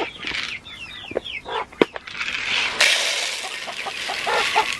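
Chickens clucking and chirping around a feeder. A sharp knock comes a little under two seconds in. From a little past halfway, grain feed is poured from a scoop into a plastic feeder pan, making a steady grainy hiss.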